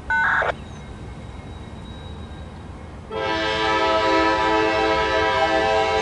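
Diesel locomotive chime air horn on an approaching freight train: a brief higher toot right at the start, then about three seconds in a long, steady multi-note blast over a low rumble.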